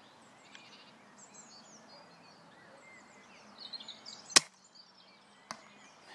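Novritsch SSG24 spring-powered bolt-action airsoft sniper rifle firing once with a single sharp snap about four seconds in, then a fainter click about a second later. Small birds chirp faintly in the background, most just before the shot.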